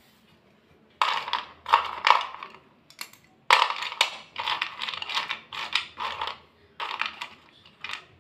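Thick white slate pencils clicking and scraping against one another as they are handled and rubbed together in the hand, a rapid run of dry clatters that starts about a second in.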